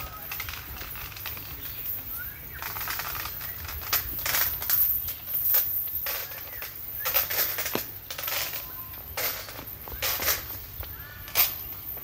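Birds chirping and squawking in quick, irregular bursts, with a few short rising whistles.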